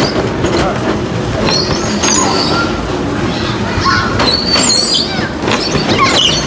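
Rumbling, knocking handling noise from a body-worn action camera jostled as a child runs and climbs through a play-place jungle gym, with short high squeals now and then.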